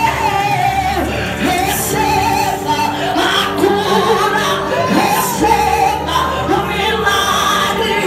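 A woman singing a Pentecostal worship song into a microphone over the PA, with band accompaniment carrying steady bass notes.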